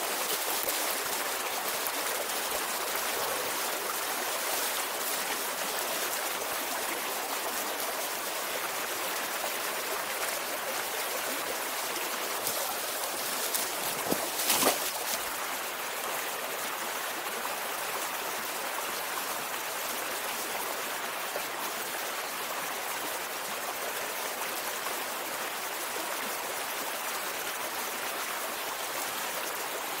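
Shallow mountain stream running over stones, a steady rush of water. About halfway through, a short cluster of knocks rises briefly above it.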